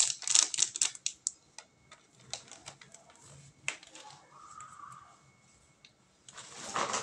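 Plastic packaging of an earphone headset crinkling and clicking as it is handled, a quick run of crackles at first, then a few scattered clicks, and a short rustle near the end.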